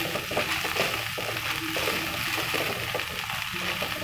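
Sweet corn kernels frying in butter in a non-stick pan, with a steady sizzle and the soft scrape and rattle of a spatula stirring them.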